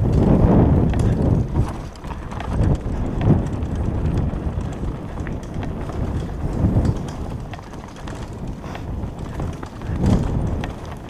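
Downhill mountain bike descending a forest dirt trail, heard from a camera mounted on the rider or bike: tyres rumbling over dirt and roots with irregular knocks and rattles as the bike bumps along, loudest in the first second and again about ten seconds in.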